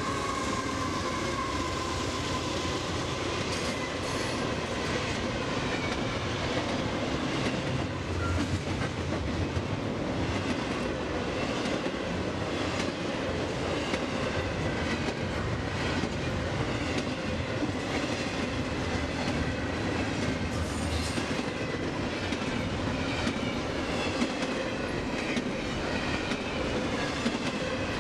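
CSX freight train passing through a level crossing at speed: diesel locomotives and then double-stack container well cars. It makes a steady rumble, with the wheels clicking and clattering over the rail joints.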